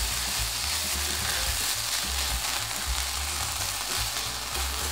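Ground pork and chopped onion sizzling steadily in sesame oil in a frying pan, with a spatula stirring and breaking up the meat.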